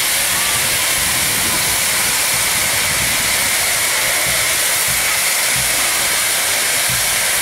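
Steam locomotive No. 2705 standing still and blowing off steam: a loud, steady hiss.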